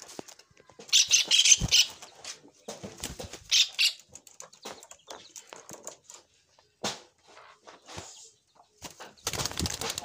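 Caged zebra doves and a hoopoe flapping and fluttering their wings inside a wire-mesh cage, in several short bursts with quiet gaps between. The longest burst comes near the end.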